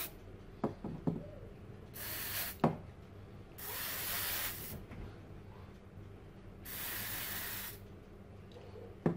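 Aerosol can of CRC electrical contact cleaner sprayed in three short hissing bursts of about a second each into the motor of a Bosch 18V cordless drill, cleaning it to get rid of sparking. A few light knocks come from the motor being turned in the hands between bursts.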